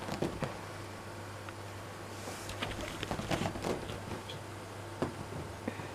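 Kittens scrambling over a satin-draped couch: scattered soft taps and rustles of paws and claws on the slippery fabric, busiest in the middle, over a steady low hum.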